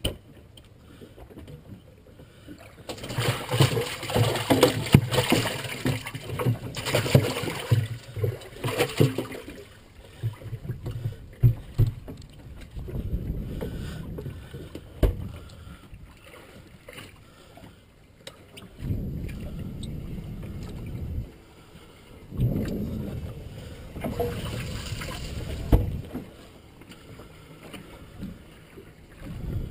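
Wind gusting across the microphone on a small fishing boat, in several separate gusts of low rumble, with a run of knocks and clatter in the first third.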